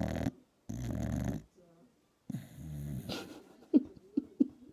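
A dog snoring really loud: three long snores with short gaps between them, then three short sharp sounds near the end.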